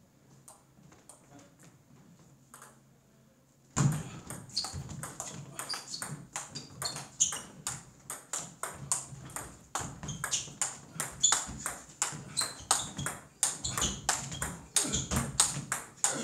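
Table tennis rally: the ball clicking off the bats and the table in a quick, steady rhythm, several hits a second. Faint ticking at first, then loud from about four seconds in.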